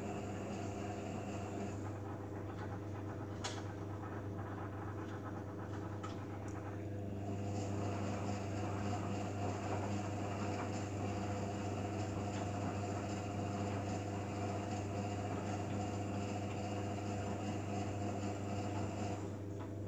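Beko Eco Care WMA 1510 W washing machine running a 60°C eco wash: a steady hum, with the drum-turning sound pausing about two seconds in, starting again a few seconds later and stopping near the end. One sharp click just before the pause ends.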